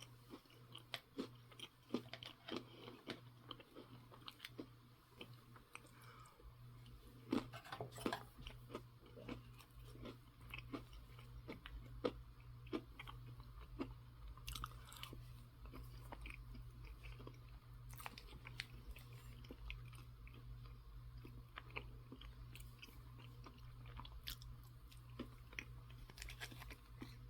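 A person chewing crunchy food close to the microphone: faint, irregular crunches and mouth clicks, busiest in the first ten seconds and thinning out after, over a low steady hum.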